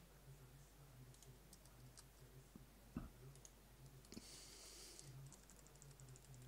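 Faint, scattered clicks of a computer mouse and keyboard over a low steady hum, with a short run of quick ticks near the end.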